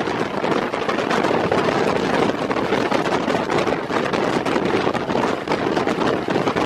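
Steady rush of wind over the microphone mixed with the running noise of a ZCU-30 diesel-electric locomotive travelling fast, heard from its cab window.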